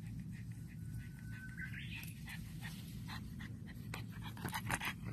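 A pug panting quickly and rhythmically as it runs, the breaths growing louder near the end, with a short rising whine about two seconds in.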